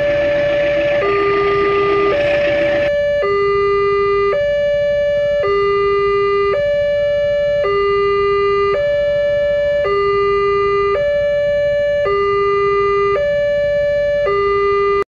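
Railway level-crossing warning alarm sounding a two-tone high-low pattern, each tone about a second long. The running noise of a passing train lies underneath it for the first three seconds, then stops. The alarm cuts off suddenly near the end.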